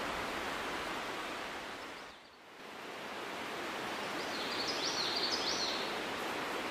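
Steady rushing hiss of outdoor background noise that fades away briefly about two seconds in and comes back. A quick run of high chirps sounds a little past the middle.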